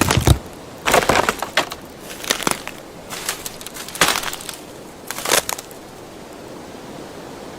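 Wood cracking and splintering: a series of about seven separate sharp snaps spaced over several seconds, the last about five seconds in, with quiet gaps between them.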